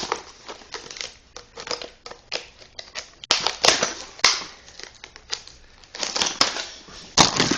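A parcel being unwrapped by hand: an irregular run of crinkling, rustling and sharp clicks and snaps from packaging material.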